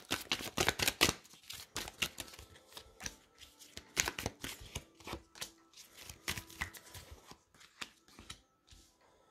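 Tarot cards being handled and dealt: a quick run of crisp card snaps about the first second, then scattered single taps and slides as cards are laid one by one onto a plastic tablecloth.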